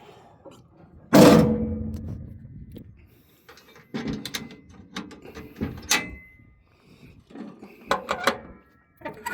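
Metal compartment door on a large excavator slammed shut about a second in, ringing briefly as it dies away, followed by several lighter metal clanks.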